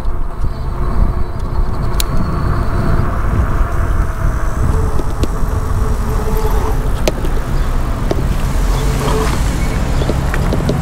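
Riding noise from an e-bike rolling through a parking lot: a steady low rumble of wind and road over the handlebar-mounted microphone, with cars running nearby and a few sharp ticks.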